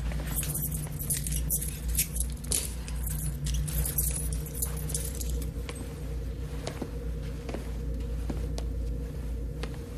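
Metal handcuffs being unlocked and taken off: a run of small metallic clicks and jangles over the first few seconds, thinning to occasional clicks, over a steady low hum.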